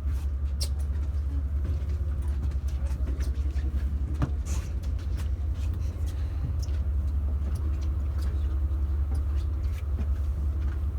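Tour boat's engines running at low speed, a steady low drone, with scattered small clicks and knocks over it.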